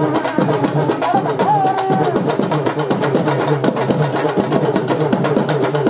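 Urumi melam drum ensemble playing a fast, dense rhythm of rapid drum strokes. A pitched tone slides and then holds about two seconds in.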